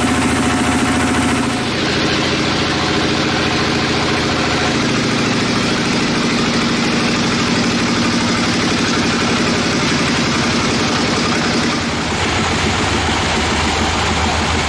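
Band sawmill machinery running steadily, its pitch shifting about 2 s in and again near 12 s.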